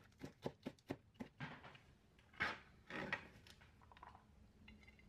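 Kitchen knife shredding cabbage into thin strips on a cutting board: a quick run of sharp chops, about four a second, then a few longer, softer sounds.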